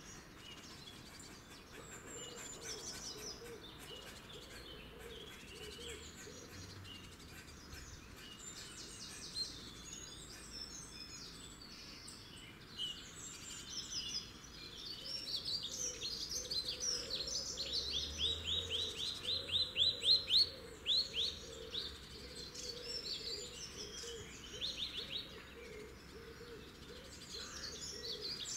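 Small birds singing and calling, with a fast trill of about four repeated notes a second near the middle that is the loudest part.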